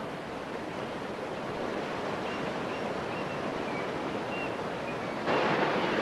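Steady rush of fast-flowing water, stepping up louder a little over five seconds in, with a few faint short high chirps over it.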